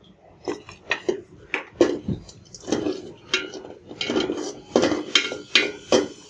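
A spatula scraping and knocking repeatedly against a metal pot, in irregular strokes, while chopped onions and green chillies are stirred to fry in a little oil.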